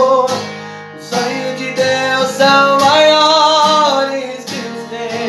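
Takamine acoustic guitar strummed in a steady rhythm, with a man's voice holding a long sung note at the start and another wordless held note from about two to four seconds in.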